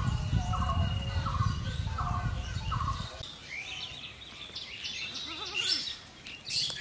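Broiler chicken squawking in short repeated calls over a low rumble for about three seconds, then higher, thinner bird chirps.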